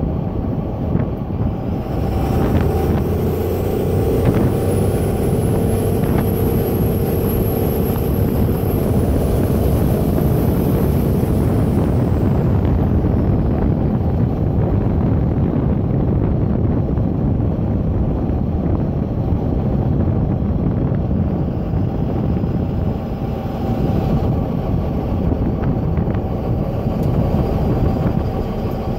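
A Dodge Ram's 24-valve 5.9-litre Cummins turbo-diesel and road noise, heard from inside the cab while driving, on a test drive of a freshly rebuilt 47RE automatic transmission. A high whistle rises in about two seconds in, holds, and fades away about twelve seconds in.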